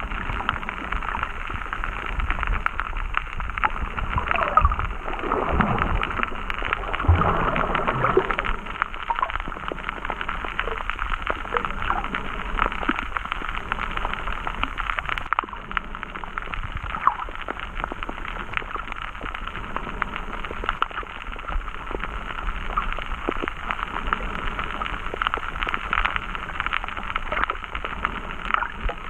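Underwater sound picked up by a GoPro in its housing: a muffled, steady water hiss full of fine crackling clicks, with a louder gurgling stretch about five to eight seconds in.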